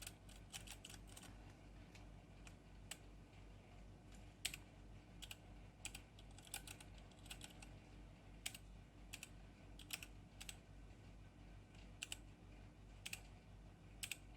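Faint keystrokes on a Geek GK64 mechanical keyboard with brown tactile switches. A quick run of presses comes at the start, then single key presses at a slow, uneven pace.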